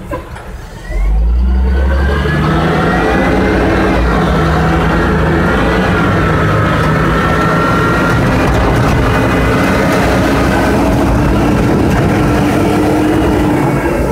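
Yard truck's diesel engine starting to pull under load about a second in, its pitch climbing over a few seconds and then holding steady, with heavy rain pouring on the cab.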